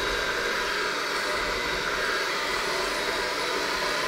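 Electric hand mixer running steadily, its beaters churning a thick mixture in a stainless steel bowl.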